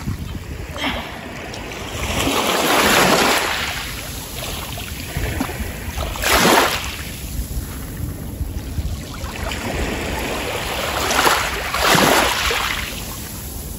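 Small sea waves breaking and washing up over a pebble and sand shore, a hissing surge every few seconds.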